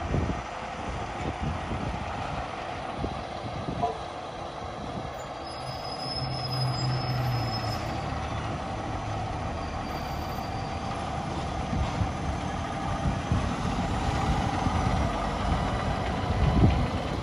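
A fire engine's diesel engine running as the truck pulls out of the station and drives past, with a steady low note for a couple of seconds near the middle.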